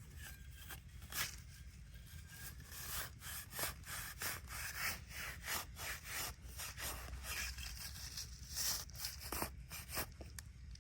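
Irregular scraping and rubbing strokes, coming thicker in the middle of the stretch.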